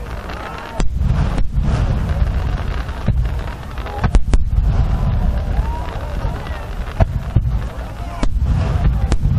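Large 12-inch (shakudama) aerial firework shells bursting in quick succession: a continuous deep rumble of booms with about eight sharp bangs spread through the span.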